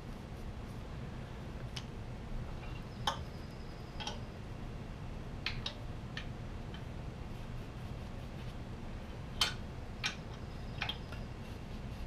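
Scattered light clicks and taps, about nine of them, as motorcycle parts are handled and wiped clean with a rag, over a steady low hum.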